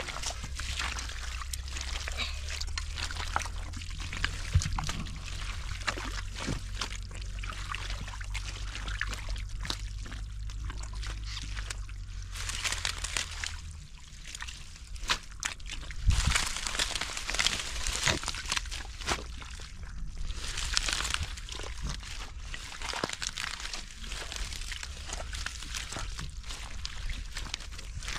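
Water sloshing and splashing irregularly as people wade and work by hand in shallow water, with bursts of heavier splashing. A low steady hum runs underneath and stops about halfway through.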